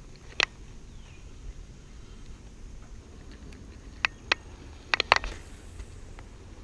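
A few sharp clicks and ticks from fishing tackle being handled while a lure is changed: one click about half a second in, then a quick cluster of five near the four- and five-second marks, over a low steady outdoor background.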